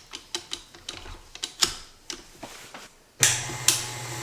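A run of light clicks and knocks as the KitchenAid spiralizer attachment is handled, then about three seconds in the KitchenAid stand mixer's motor switches on and runs with a steady hum, with one sharp click just after it starts.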